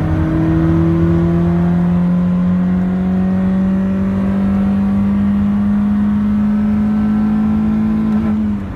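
Fourth-generation Honda Prelude's engine pulling under acceleration, its note rising slowly and steadily in pitch. The note breaks off sharply near the end.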